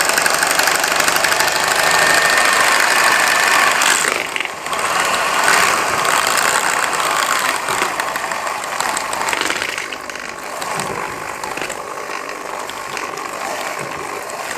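Electric hand mixer running, beating eggs into a cooked flour-and-water choux-style dough. It dips briefly about four seconds in and runs quieter from about ten seconds on.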